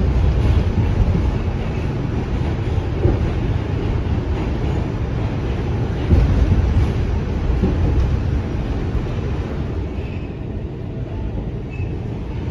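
New York City Subway A train car running along the track, heard from inside the car: a steady low rumble and rattle of wheels and carriage, easing slightly near the end.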